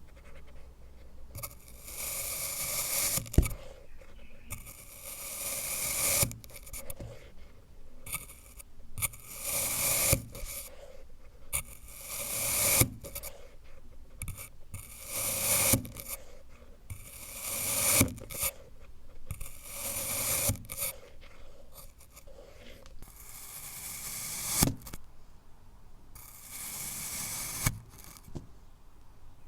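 Kinetic sand being sliced with a blade, about ten cuts in a row. Each cut is a gritty, rising hiss that ends in a sharp tap as the blade meets the surface below.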